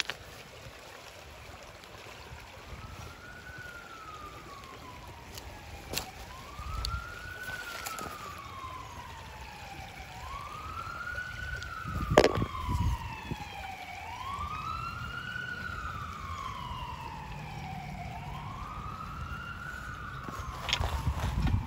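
Distant emergency-vehicle siren wailing, its pitch sweeping slowly up and down about once every four seconds. A second, higher-pitched siren joins about halfway. A few sharp clicks and knocks sound over it, the loudest near the middle.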